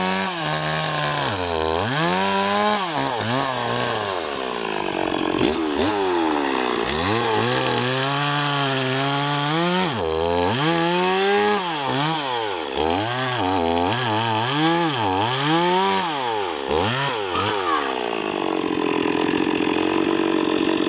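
Stock Stihl MS 260 two-stroke chainsaw cutting into a log. The engine note keeps dropping as the chain bites and loads the saw, then climbs again, over and over. For the last few seconds it runs at a steadier note clear of the wood.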